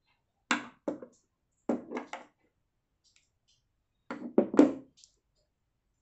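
Clicks and knocks from handling a baitcasting reel and its handle knob as the knob is taken apart: three short clusters of taps, about half a second in, about two seconds in, and the loudest a little after four seconds.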